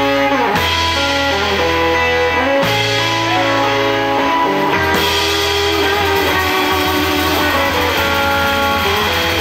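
Live rockabilly band playing an instrumental passage after the last sung line: electric and acoustic guitars over upright double bass and drums. Held chords and bass notes change every couple of seconds.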